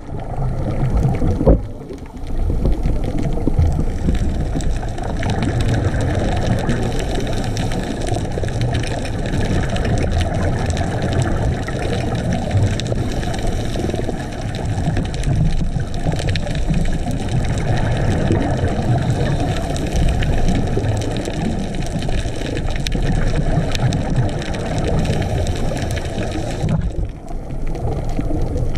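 Underwater sound picked up by a camera in its housing: a steady, muffled low rush of water.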